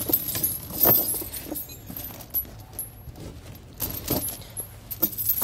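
Steel V-bar snow tire chain links clinking and jangling as the chain is lifted and draped over a tire, in several short rattles, the loudest about a second in and again about four seconds in.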